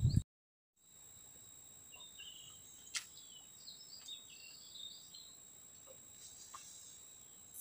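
Faint outdoor ambience with scattered short bird chirps, over a faint steady high whine. A brief dead silence opens it, and there is a single sharp click about three seconds in.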